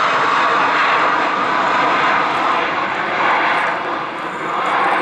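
Singapore Airlines Airbus A330-300's jet engines roaring steadily as it climbs away after takeoff, easing off a little near the end.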